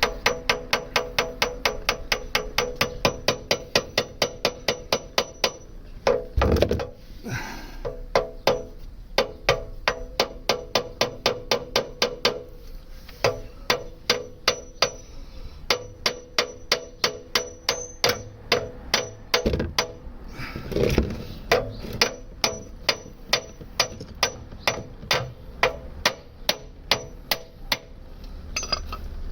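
Repeated hammer blows on metal, about three ringing strikes a second with a few short breaks and a couple of louder clattering moments, as a tool is hammered into a stuck oil-change part on a 1999 Subaru Forester to punch a hole and get purchase on it.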